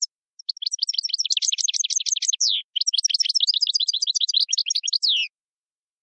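A small finch, canary or goldfinch, singing: a fast run of short, high chirping notes in two phrases, with a brief break about two and a half seconds in.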